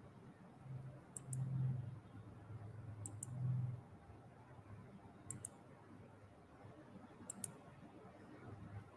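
Faint pairs of sharp clicks, about two seconds apart, four pairs in all. A low hum swells twice in the first few seconds.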